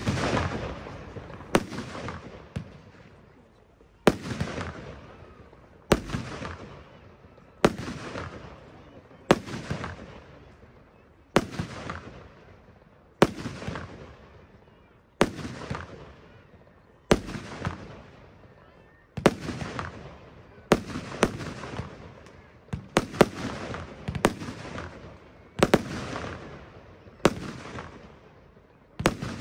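Firework battery ('Massive Escape') firing shot after shot, a sharp bang about every two seconds, each followed by a fading hiss as the silver-white stars burn out; now and then two bangs come close together.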